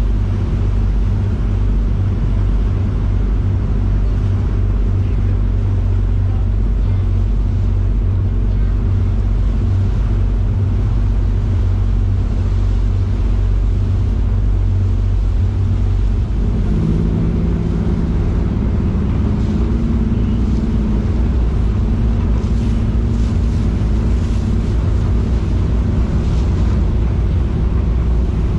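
Sightseeing ship's engines running with a steady low drone under wind on the microphone and the rush of the churning wake. About halfway through, the engine note shifts to a different set of steady hums.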